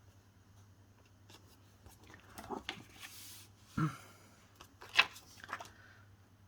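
Paper and cardstock being handled and moved about on a craft table: light rustling and sliding, a dull knock, and a sharp tap about five seconds in.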